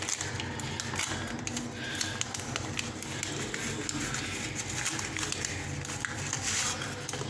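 Paper tea-bag envelope being handled, crumpled and opened by hand: a run of small crinkling crackles and clicks.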